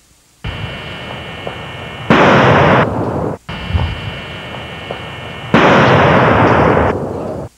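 Two loud firecracker blasts, about two seconds and five and a half seconds in, each trailing off over about a second. The firecrackers are 'Pineapples', taken for quarter sticks of dynamite. A steady whine runs between the blasts.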